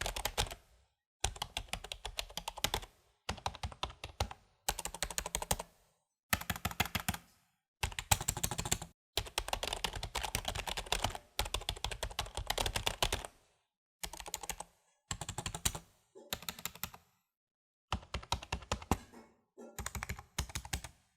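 Typing on a Logitech K120 membrane keyboard: quick runs of key clacks in bursts of a second or two, with short pauses between them, played as a demonstration of how the keyboard sounds.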